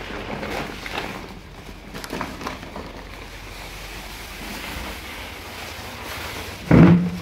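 Rustling and scuffing handling noise from a phone camera being carried, with a few light knocks in the first couple of seconds. Near the end comes one loud, low thud, the loudest sound.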